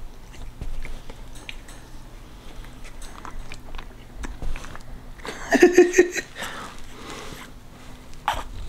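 French bulldog puppy mouthing and licking at liquid dewormer squirted from an oral syringe into its mouth, with small wet clicks and smacks. A brief louder vocal sound comes a little past the middle, and a short rising one near the end.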